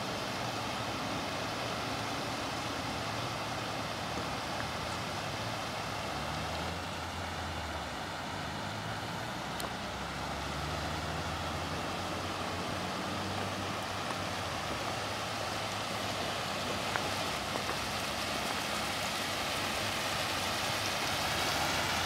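Steady outdoor rushing hiss with the low, wavering rumble of road traffic underneath, growing somewhat louder near the end.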